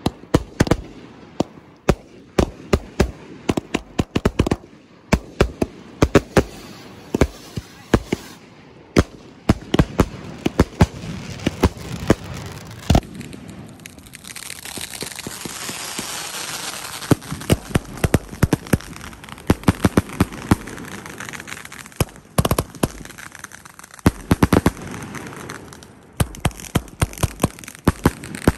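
Consumer fireworks going off in quick succession: many sharp bangs and crackling reports from rockets and aerial bursts. About halfway through, a steady hiss of burning fountain or cake effects rises under the bangs, then fades again before the last cluster of reports.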